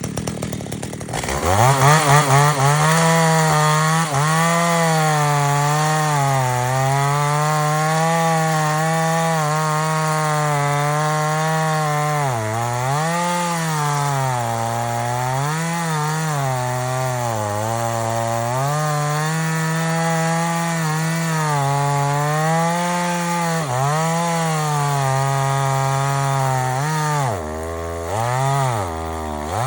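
Echo CS-3600 two-stroke chainsaw cutting wood. The engine revs up about a second and a half in, then runs at high speed. Its pitch sags and recovers again and again as the chain loads in the cut.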